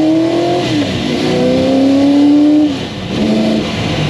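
Ford GT40 Mk1's small-block V8 accelerating hard, heard from inside the cockpit. The engine note climbs, falls sharply just under a second in as it shifts up, climbs again for about two seconds, and drops again near the three-second mark at the next shift.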